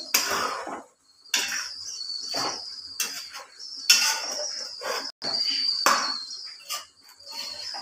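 Metal spoon scraping and knocking against a stainless-steel kadai as a thick curry is stirred, in irregular strokes roughly once a second. A steady high-pitched whine runs underneath.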